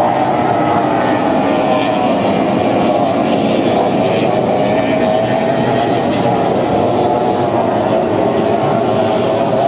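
Formula One tunnel-hull powerboats' two-stroke racing outboard engines running hard, a steady high-pitched drone that wavers slightly in pitch.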